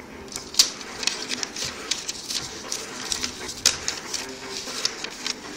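Sheet of origami paper rustling and crackling as it is handled, flipped and creased, with a run of sharp crinkles. Two crackles stand out as loudest, about half a second in and just past the middle.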